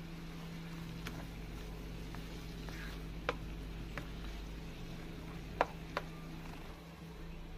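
Chicken pieces frying in a nonstick wok as they are stirred with a plastic spatula: a few sharp taps of the spatula against the pan, the loudest a little past three seconds and halfway through, over a steady low hum.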